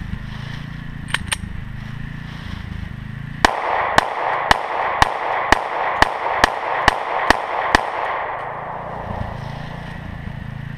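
Semi-automatic pistol fired in a rapid string of about ten shots, roughly two a second, after two small clicks.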